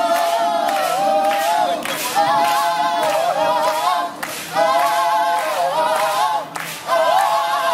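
A group of voices singing unaccompanied in close harmony, repeating a short sung phrase about every two seconds.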